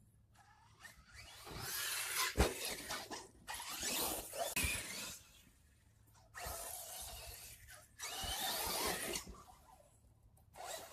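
Radio-controlled truck driving over bare dirt and grass in several bursts of a second or three each, giving a rough, rattly hiss with quieter gaps between the runs.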